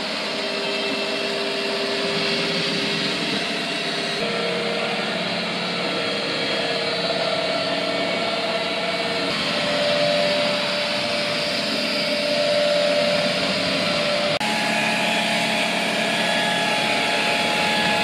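Xiaomi Robot Vacuum S10T's suction fan running steadily, stepped up from minimum power through boost to turbo mode. At each step, about every five seconds, the fan's whine jumps to a higher pitch and the sound grows a little louder.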